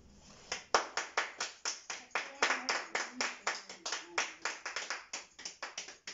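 A small group of people clapping their hands together in a quick, steady rhythm, starting about half a second in.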